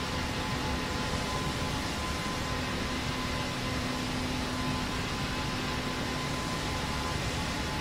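Steady airplane drone: an even noise with faint steady hums in it, unchanging throughout.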